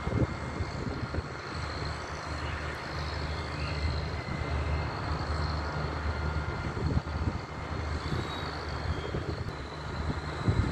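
Diesel engines of an SNCF X72500 railcar running with a steady low hum. A few low thumps come near the start, about two-thirds of the way through and near the end.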